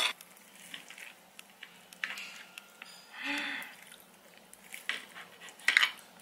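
Cutlery clinking and scraping on a plate while eating, with a sharp clink right at the start and another near the end.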